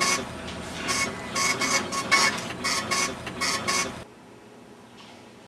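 Lottery terminal's ticket printer printing a lottery ticket, running in a rapid series of short stop-start bursts with a whining tone. It stops about four seconds in.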